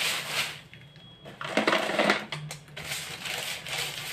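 Raw peanuts rattling as they are poured by hand into a plastic storage jar, in several irregular bursts.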